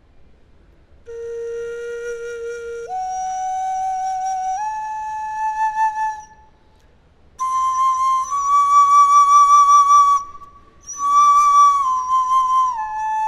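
A Maya-style flute played in clear, held notes: three notes stepping upward, a pause, long high notes, a short break, then notes stepping back down near the end.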